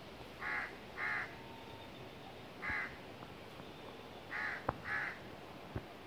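A crow cawing five times in short, harsh calls: a pair, a single caw, then another pair. A steady hiss of stream water runs beneath, and two sharp clicks come near the end.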